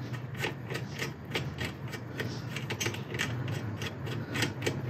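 Hand rivet nut setter being unscrewed from a freshly set stainless steel rivet nut: a run of light metallic clicks, about three a second.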